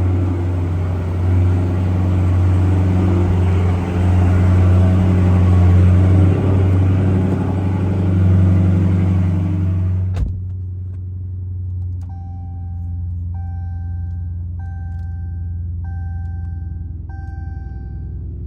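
Dodge 392 (6.4-litre HEMI V8) idling steadily after a cold start, loud and open at first; about ten seconds in a car door thumps shut and the engine becomes muffled. Then a chime beeps five times at an even pace, the seatbelt reminder.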